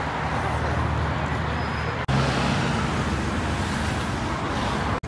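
Road traffic on a busy city street: engines rumbling and tyres hissing in a steady wash of noise, with a short sharp break about two seconds in.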